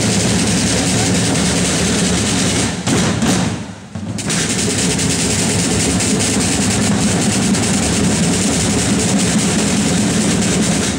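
A corps of parade snare drums played together in fast, unbroken drumming. About three seconds in it breaks into a few separate accented strokes and a brief pause, then the drumming starts again.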